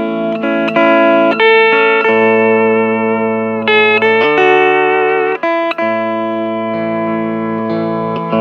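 Hawaiian steel guitar playing a slow, sustained melody, its notes gliding between pitches and sliding upward about four seconds in, over steady low accompanying notes.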